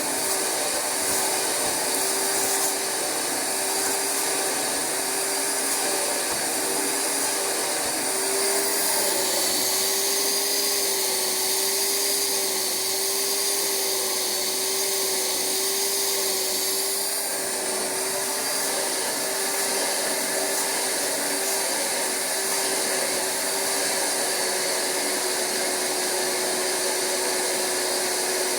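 Rug Doctor carpet cleaner's vacuum motor running steadily while its upholstery hand tool extracts water from couch fabric, a constant whining hum with airy hiss. A higher whistle joins for several seconds midway, then drops away.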